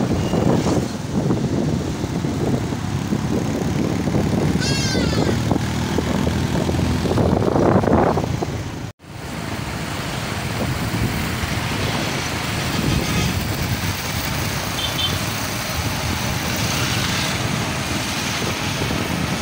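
Street traffic: motorcycle engines and passing cars with wind on the microphone, and a short run of rising chirps about five seconds in. The sound cuts out for an instant about nine seconds in, then the traffic noise goes on.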